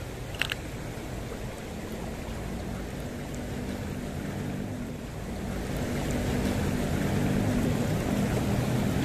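Shallow stream rushing over rocks in a steady wash of water. A low hum builds and grows louder through the second half, and a brief high chirp sounds about half a second in.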